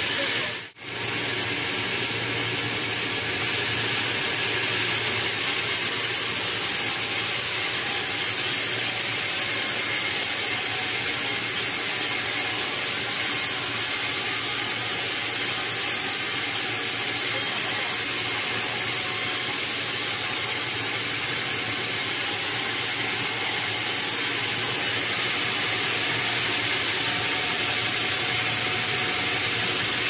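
Large vertical log band saw running steadily as it saws a sugi (Japanese cedar) log on its carriage, a continuous loud, high-pitched mechanical noise. The sound drops out briefly just under a second in, then carries on unchanged.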